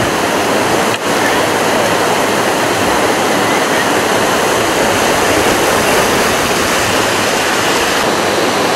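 Whitewater rushing over rocky river rapids, a steady loud roar of water that dips briefly about a second in.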